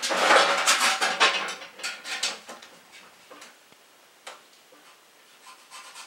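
Tape measure handled against a black stovepipe: a metallic rattle and rustle for about two seconds as the blade is pulled out and set on the pipe, then a few light ticks and taps while it is held in place for marking.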